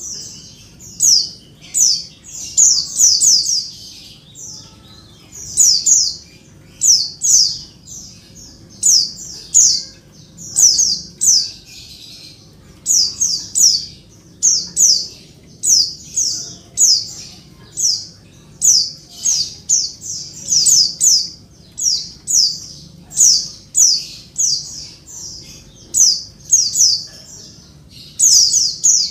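Female white-eye (pleci) calling noisily: short, high, falling chirps in quick clusters of two to five, about one cluster a second. Bird keepers use this call to provoke male white-eyes into answering and singing.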